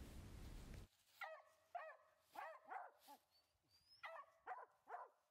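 Cur dogs barking at the foot of a tree, the bark of dogs that have treed a squirrel: about eight short, faint barks, a run of four or five, a pause, then three more.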